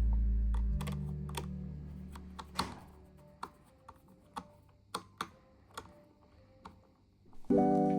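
A handful of short, separate plastic clicks and taps, as a toy RC car remote's battery cover is opened and AAA batteries are handled. Background music fades out over the first few seconds and comes back near the end.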